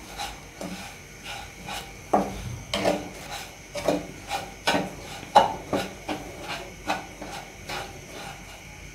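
Wooden spatula stirring and scraping grated coconut and sugar around a non-stick wok, in short repeated strokes about two a second.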